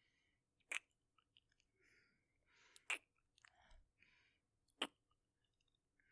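Close-miked kisses: three sharp lip-smacking kisses about two seconds apart, with soft breathy mouth sounds between them.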